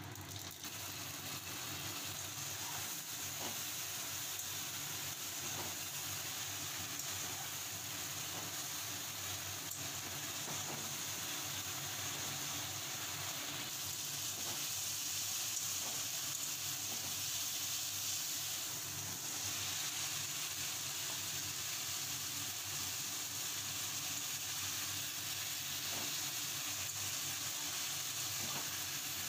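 Hot oil sizzling steadily in a metal wok as spices and a paste fry with dried red chillies, with a few light scrapes of a metal spatula. The sizzle grows louder and brighter about halfway through.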